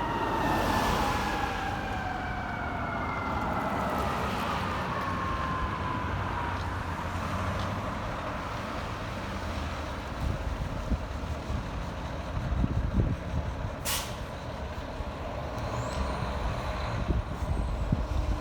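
Fire ladder truck's siren winding down, its pitch slowly falling and fading out over the first several seconds, over the steady rumble of the heavy truck and traffic. About 14 seconds in there is a short, sharp air-brake hiss.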